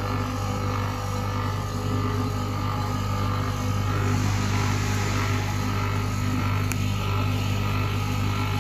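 150 W CO2 laser cutting machine running with a steady low electrical hum and an even hiss above it.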